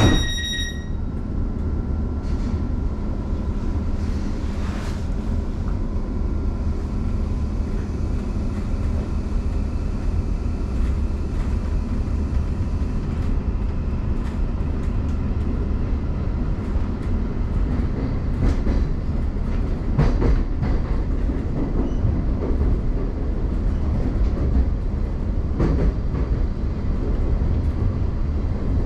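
Class 717 electric train running through a tunnel, heard from inside the carriage: a steady low rumble with occasional sharp clicks from the wheels. A door-closing warning tone stops just under a second in.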